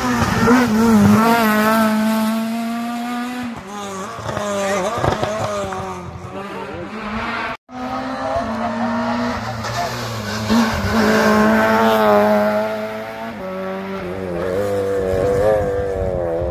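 Rally car engines at full throttle on a closed stage, the pitch climbing through each gear and dropping at each shift as the cars pass. The sound breaks off briefly about seven and a half seconds in, then another car is heard accelerating.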